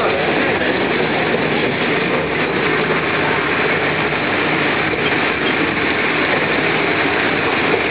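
Steady running noise of a rubber-tyred tourist road train, heard from on board its open carriage as it drives along a street: engine and wheel noise at an even level.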